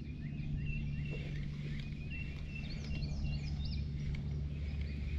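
Birds chirping repeatedly in short high notes, with a few quick whistled glides a little before the middle, over a steady low rumble of outdoor ambience.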